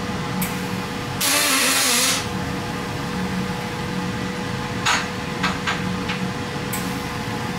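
MIG welding of aluminium with a Grovers Energy MIG 200 dual-pulse welder: the arc buzzes steadily over a constant hum. The hiss grows louder for about a second near the start, and a few short crackles come later.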